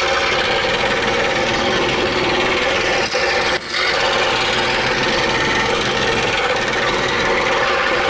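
Excalibur scroll saw running and cutting a cherry block, its blade reciprocating through the wood in a bevel cut with the blade tilted about 12.5 degrees. The noise is steady, with two brief dips a little past three seconds in.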